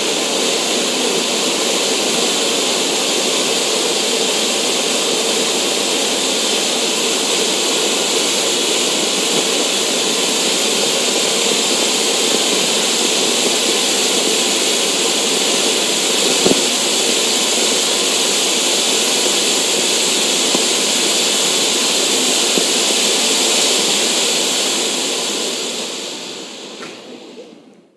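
Black smoke firework hissing steadily as it vents its smoke, then fading away over the last few seconds.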